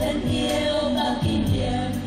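A group of young women singing a song together into handheld microphones, over a backing track with a steady beat.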